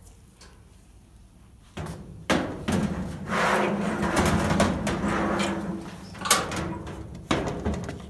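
Sheet-metal dryer drum being worked back into the dryer cabinet. Starting about two seconds in, it scrapes and rumbles against the cabinet for several seconds, with a couple of sharp knocks near the end.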